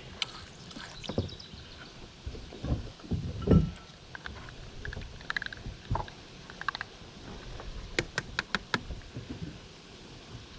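Knocks, bumps and small clicks of hands working on a boat's fuel filter and fuel line, with a quick run of about six sharp clicks around eight seconds in.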